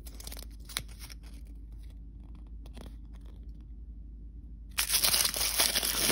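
Quiet handling of small paper cards with a few light taps, then, near the end, a crinkly plastic blind-bag wrapper being pulled open, much louder, with dense crinkling.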